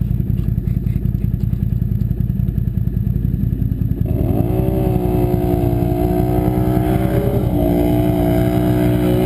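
ATV engine revving up about four seconds in and held at full throttle, wide open, with a short dip near the end, over a steady low engine idle.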